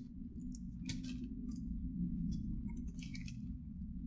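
Close-up eating sounds: a person chewing a sub sandwich with crispy onion pieces, giving scattered short crackles and crunches, clustered about a second in and again near three seconds, over a steady low hum.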